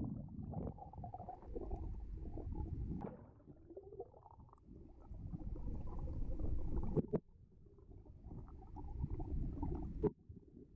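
River current heard through a submerged GoPro camera: a muffled low rumble and gurgle, dropping out briefly a couple of times, with a few sharp knocks.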